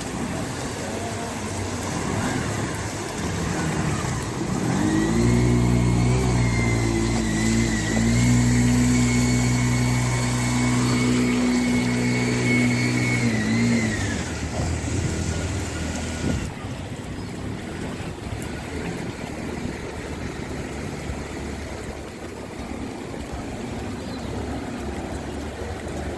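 A motor vehicle's engine running close by. It grows louder about five seconds in and holds a steady pitch with a high whine alongside, then fades at about fourteen seconds, leaving a lower, steady traffic background.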